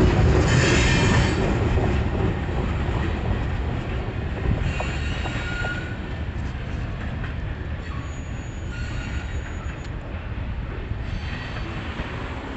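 Freight train of covered hopper cars rolling past and away on jointed track, its wheel and rail rumble fading steadily as the last cars leave. A brief high wheel squeal comes about a second in.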